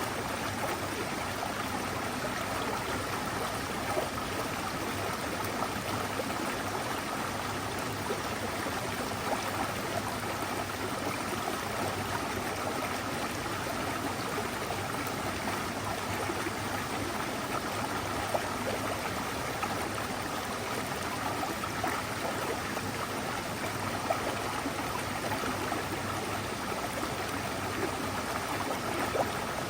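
Mountain stream flowing over rocks: a steady rush and gurgle of running water, with a few brief louder splashes.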